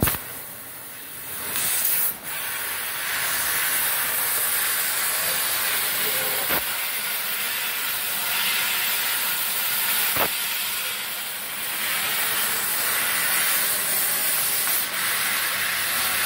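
MultiPro LCM 2500 laser cutting machine cutting steel sheet: a steady, loud hiss of the assist-gas jet at the cutting head, starting about two seconds in. Three short sharp clicks come along the way.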